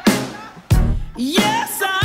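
Theme music: heavy beat hits at the start and just under a second in, then a held melody note with vibrato enters in the second half.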